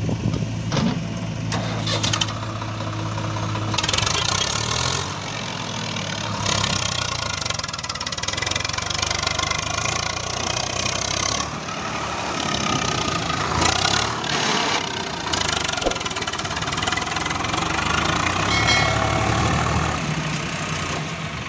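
Swaraj 744 FE tractor's three-cylinder diesel engine running as it pulls a fully loaded mud trolley away, its engine note shifting a few times as it moves off.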